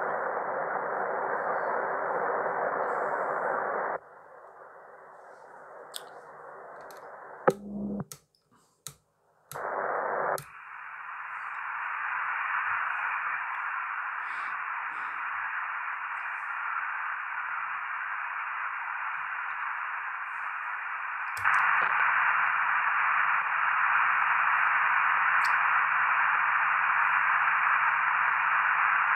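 Icom IC-R71E shortwave receiver putting out steady band hiss with no station tuned in. The hiss drops away about 4 seconds in, and a run of sharp clicks with brief silences follows as the receiver is switched to another frequency. The hiss comes back reaching higher, and gets louder a few seconds before the end.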